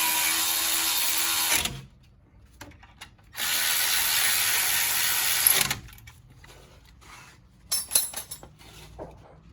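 A power tool running in two steady bursts of about two seconds each, driving in the brake caliper bolts, followed by a few sharp clicks near the end.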